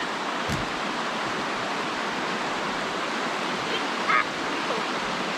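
Stream water rushing steadily, with a brief bird chirp about four seconds in.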